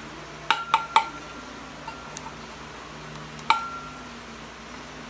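Small stainless-steel bowl tapped with a spoon, ringing: three quick taps, a few faint ticks, then one more ringing tap, knocking the last baking powder out into the sieve.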